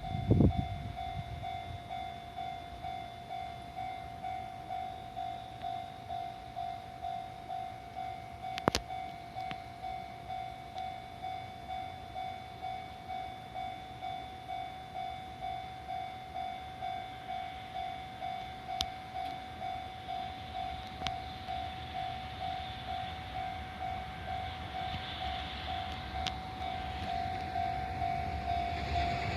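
Japanese railway level-crossing warning bell ringing in an even, steady rhythm, just under two strokes a second. Near the end the rumble of an approaching freight train grows louder under it.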